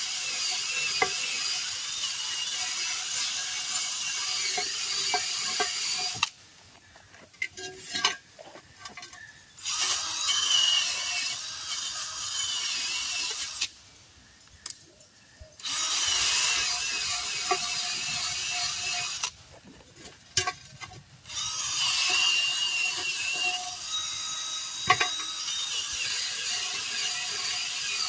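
Rim bead seat being cleaned with an abrasive tool, a harsh, high scraping hiss with a wavering whine, to clear corrosion off the lip so the tire will seal. It runs in long stretches and stops three times for a few seconds.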